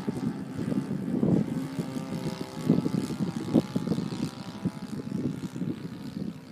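Radio-controlled Yak 54 model aerobatic plane in flight, its engine and propeller giving a steady drone that carries from a distance, with gusts of wind buffeting the microphone.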